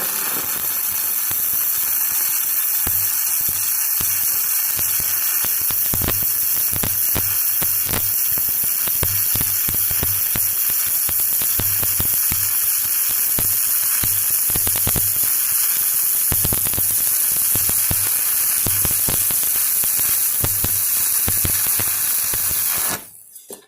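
Stick (MMA) welding arc from an SWP Digi MIG 200 inverter welder, a steady crackling sizzle with many small pops as the electrode burns. The arc is broken about 23 seconds in and the sound cuts off suddenly.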